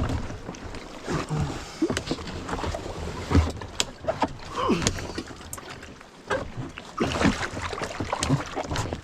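A person clambering out of a kayak into knee-deep water: irregular splashes and sloshing, with knocks against the kayak's hull.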